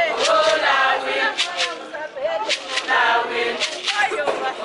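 A group of women singing a chant-like song together, several voices overlapping.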